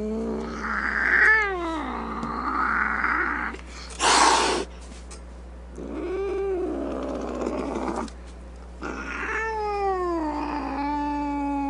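Domestic cat caterwauling: long drawn-out yowls that swoop and fall in pitch, with rough, harsh stretches. A short, loud, harsh burst comes about four seconds in.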